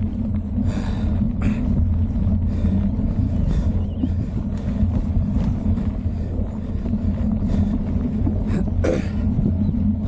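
Wind buffeting a bike-mounted action camera's microphone, a steady low rumble, over the knobby tyres of a mountain bike rolling down a dirt trail, with a few short rattles and clicks from the bike over bumps.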